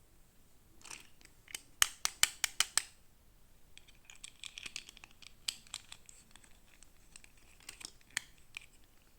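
Toy packaging being opened by hand: a quick run of sharp clicks, then crinkling and tearing with a few scattered clicks.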